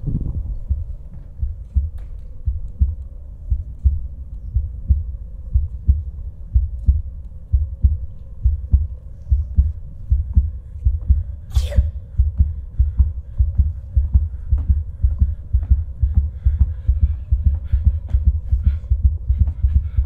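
Amplified heartbeat sound effect: a fast, slightly uneven pulse of low thumps, over a faint steady hum. A brief sharp hiss-like noise cuts in about halfway through.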